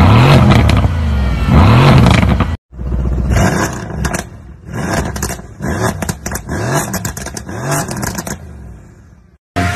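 Mercedes-AMG C63 S coupe's twin-turbo V8 revved in repeated quick blips through its quad exhaust. After a sudden cut, a second C63 coupe is revved the same way with sharp crackles and pops between the revs. The sound fades out near the end.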